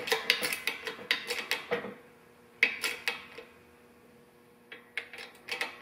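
Rapid light metallic clicks and clinks from handling a park brake chamber and its clamp band as it is centred, in quick runs with a pause in the middle.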